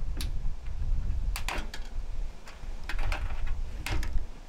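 Scattered sharp clicks and taps, about six in all, as push-on wire connectors are worked off small parts inside an opened microwave oven's sheet-metal housing, over a steady low rumble.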